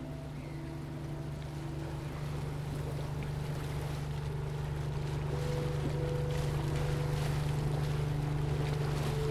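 Shrimp boat's engine running with a steady low drone, under wind and water noise that grows gradually louder.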